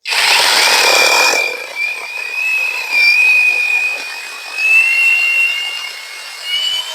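Battery chainsaw starting up and cutting through a log under light pressure: a steady high electric-motor whine over the rasp of the chain in the wood. The rasp is heaviest for the first second and a half, and the whine rises a little near the end.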